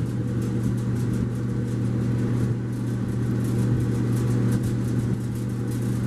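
1957 Maytag 641C clothes dryer running with its drum belt off: the motor and blower fan give a steady hum with fast, light ticking over it.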